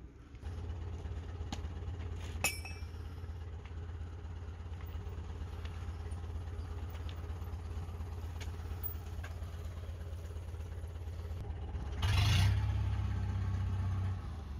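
Forklift engine running steadily at idle, getting louder for a couple of seconds about twelve seconds in as it revs. A single sharp click about two and a half seconds in.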